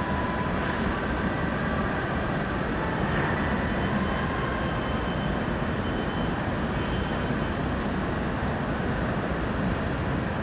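Steady mechanical rumble with faint high whining tones above it.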